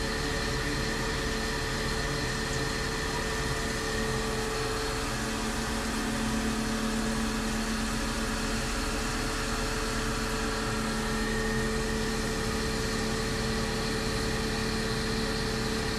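Tormach CNC mill's spindle running in its low belt range, driving a 3/8-inch end mill through a light-radial, deep-axial cut in hard Hastelloy X under flood coolant. It makes a steady machine whine of a few fixed tones over coolant hiss. A lower tone comes in about four seconds in and fades out near twelve seconds.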